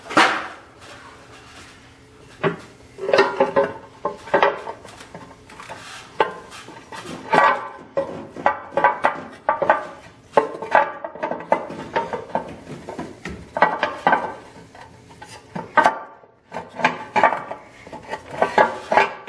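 Irregular clanks, knocks and rattles of hard engine parts being handled as the valve cover is worked free and lifted off a Cummins 5.9 24-valve diesel's cylinder head, with a loud knock right at the start.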